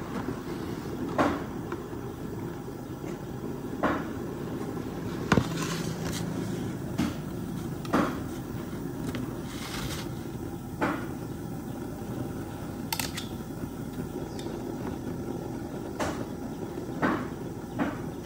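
Long wooden cooking chopsticks knocking now and then against a pot and plastic colander while boiled dog intestines are lifted out of the steaming pot. A steady low rumble runs underneath.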